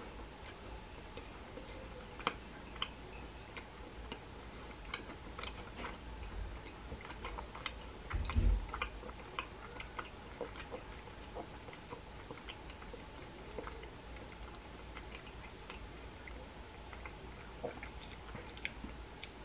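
Faint chewing of a macaron: soft irregular clicks and crunches, with one louder low thump about eight seconds in, over a faint steady hum.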